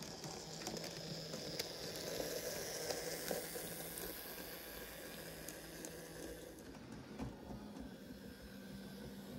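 N gauge model train running past on the track, giving a steady hiss with a low hum that grows loudest as it passes close, about two to four seconds in, then eases off. A few light clicks sound along the way.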